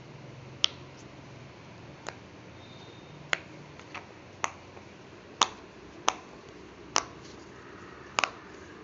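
Heart-shaped silicone pop-it fidget toy, its bubbles pressed one at a time: a series of sharp single pops, roughly one a second at uneven spacing, with a quick double pop near the end.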